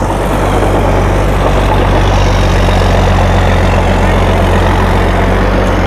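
Tracked rice-straw baler running steadily in the field: a low, even engine drone under the dense noise of the straw pickup and baling mechanism working.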